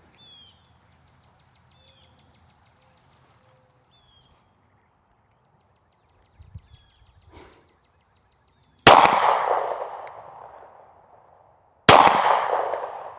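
Two shots from a Springfield Armory Echelon pistol, about three seconds apart, each with a long ringing decay.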